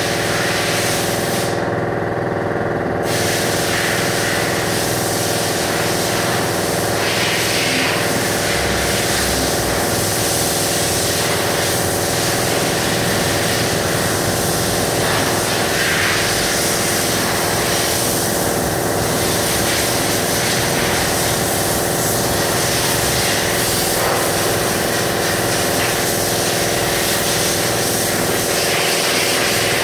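A steady mechanical hum with a hiss over it, like a motor running at a constant speed, unchanging throughout.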